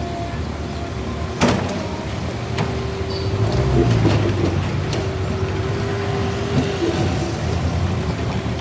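Excavator and dump truck working: a steady machine hum with a held whine, a sharp clank about a second and a half in, a few lighter knocks, and a swell of low rumble around four seconds in.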